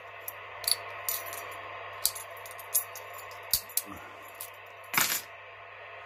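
Sharp metallic clicks and clinks of lock picks and steel padlocks being handled, with the loudest clatter about five seconds in. A steady background hiss from the CB radio runs underneath.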